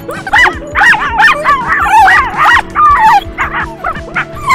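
Miniature dachshund yipping and barking in a rapid run of short, high-pitched yelps that crowd together in the middle, eager to run, with music playing underneath.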